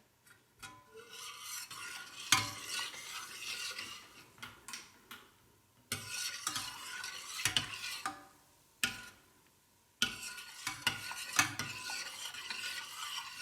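A spoon stirring honey into dark beer in a pot, scraping and knocking against the sides, in three bouts with short pauses between them.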